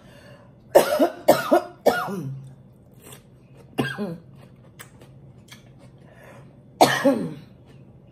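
A woman coughing about five times in short, harsh bursts, each ending in a falling voiced tail: three in quick succession near the start, one about four seconds in and one near the end. Faint clicks between the coughs.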